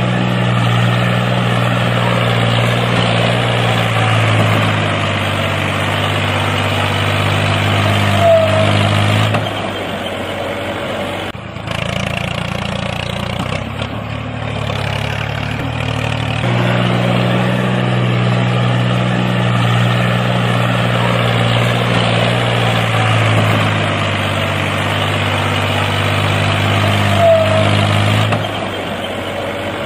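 A recorded tractor engine sound running steadily, with a brief break about eleven seconds in and a changed stretch after it. The same stretch of sound repeats about every nineteen seconds: a looped engine sound effect.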